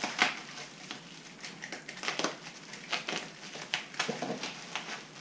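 Cardboard and packing material rustling and scraping, with irregular light knocks, as an exhaust pipe section is worked out of its shipping box.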